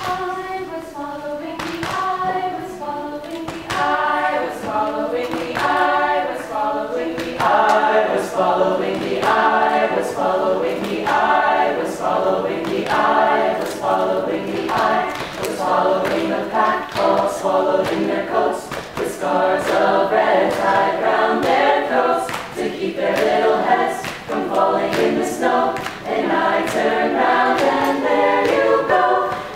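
Mixed choir singing a cappella in several voice parts, with short sharp clicks at times.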